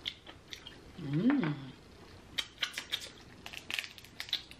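A steamed lobster claw's cracked shell being pulled apart by hand: a run of sharp cracks and clicks in the second half. Before that, about a second in, a short hummed 'mm' that rises and falls in pitch.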